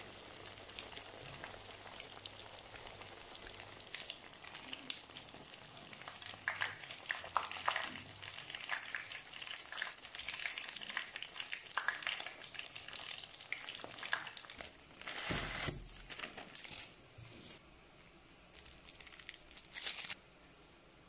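Breaded noodle rings deep-frying in hot oil, a steady sizzle full of sharp crackles and pops. In the last few seconds the frying gives way to short bursts of crinkling from a plastic seasoning sachet.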